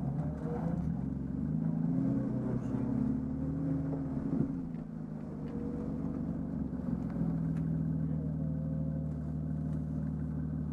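Rally car's engine heard from inside the cabin as the car creeps forward, the revs rising and falling a little, then settling into a steady idle as it stops about seven seconds in.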